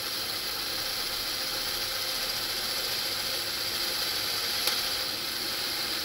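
Electric drill running at low speed, boring a hole through a fibreglass boat hull's gel coat; a steady whir with one sharp click about four and a half seconds in.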